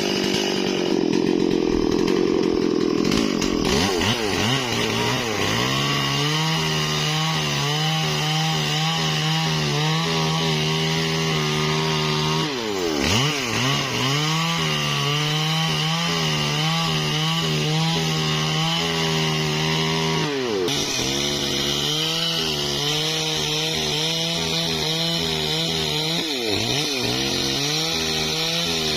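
Stihl MS 440 two-stroke chainsaw running at high speed, cutting through a tree trunk. Its steady engine note sags in pitch and picks back up three times in the second half, as the chain bogs in the cut or the throttle is eased and reapplied.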